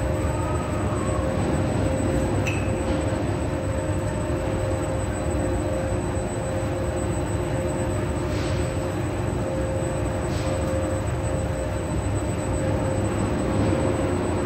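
Sky Tower ride's hoist machinery running: electric drive motor and traction sheave with its steel hoist ropes, a steady mechanical drone with a few held hum tones.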